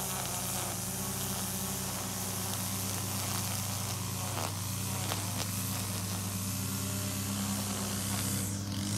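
A mower's Kawasaki engine running steadily at a constant speed, with a string trimmer buzzing over it.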